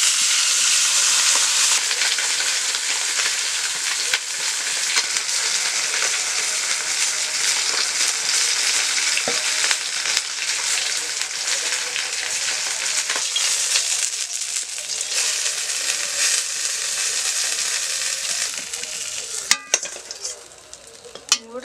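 Bhetki fish pieces sizzling as they shallow-fry in hot oil in a metal wok, stirred and turned with a steel spatula. The sizzle dies down near the end, and two sharp metal clinks follow.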